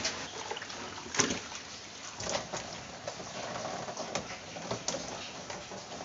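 Cleaning inside a refrigerator: a cloth rubbing on the plastic liner while hard plastic fittings knock and clatter. There are a few sharp knocks, the loudest about a second in, over a steady hiss.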